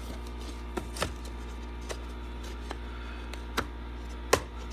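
Light knocks and clicks of CNC-cut plywood finger-jointed box panels being handled and fitted together, about six taps, the sharpest near the end, over a steady low hum.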